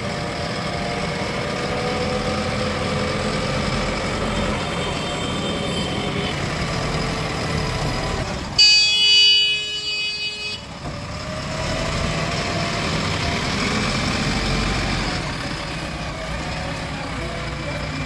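JCB 3DX backhoe loader's diesel engine running steadily as the machine drives along. About halfway through, a loud horn sounds for about two seconds.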